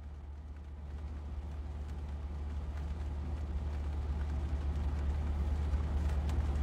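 Steady low rumble of a car heard from inside the cabin, with engine hum and road or cabin noise, growing gradually louder.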